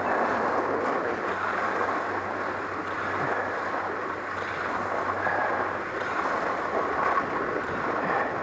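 Skis running over groomed corduroy snow, a steady hiss mixed with wind rushing past the microphone.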